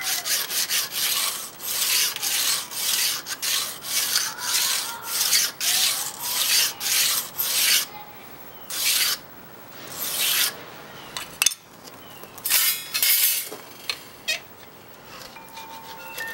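Hardened steel burnisher stroked along the edge of a thin Japanese saw-blade scraper clamped in a vise, rolling a hook on the edge: steel rubbing on steel in quick repeated strokes, thinning to a few spaced strokes about halfway through.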